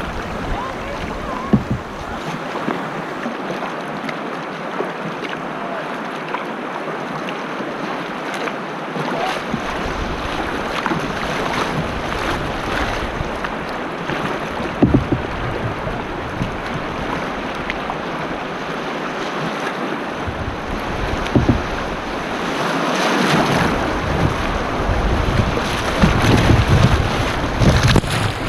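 Rushing river water splashing against a kayak's hull through small rapids, picked up close by a camera on the bow deck, with a few sharp knocks. It grows louder near the end as waves break over the bow and the camera.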